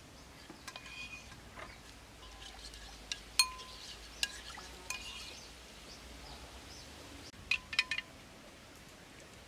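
Metal spoon stirring batter in a ceramic bowl, striking the bowl's side in scattered sharp clinks that ring briefly; the loudest comes about three and a half seconds in, and a quick cluster follows near the end.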